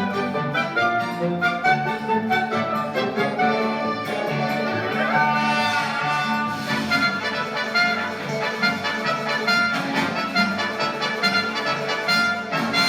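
Orchestral background music with brass and strings, in quick, bouncy notes, with a rising run of notes about five seconds in.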